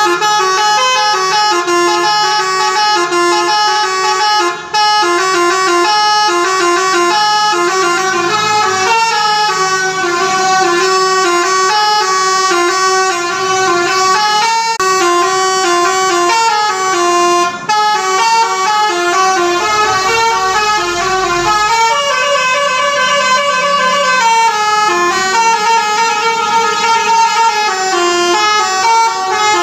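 Telolet horn on a Family Raya bus: a set of musical air-horn trumpets playing a fast, snaking 'mengular' tune of stepped notes without stopping.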